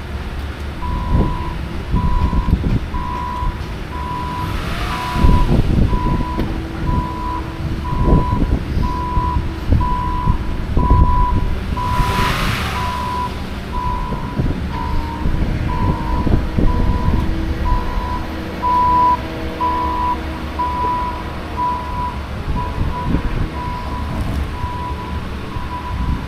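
Backup alarm of a yard vehicle beeping steadily on one pitch, about three beeps every two seconds, over the low rumble of heavy vehicles working.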